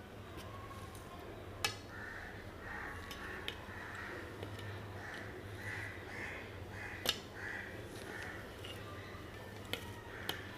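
Birds calling again and again in rough, harsh calls, with a few sharp clicks, the loudest about one and a half and seven seconds in, over a steady low hum.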